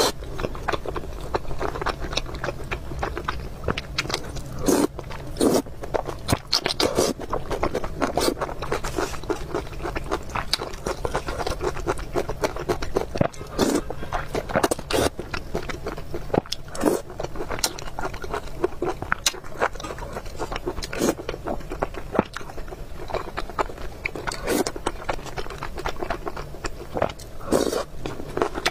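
Close-miked mukbang eating: chewing and biting with a dense, irregular run of wet clicks, smacks and crunches, and now and then a scrape. A low, steady hum runs underneath.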